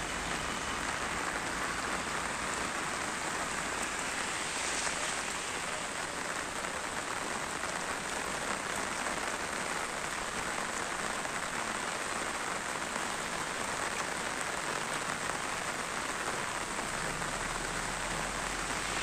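Steady rain falling on a wet, water-covered paved road: an even, unbroken hiss.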